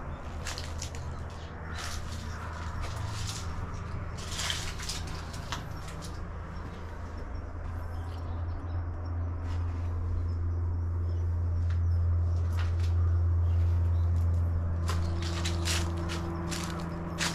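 A steady low hum that grows louder through the middle, peaks about two-thirds of the way in and eases off, with scattered short crackles over it.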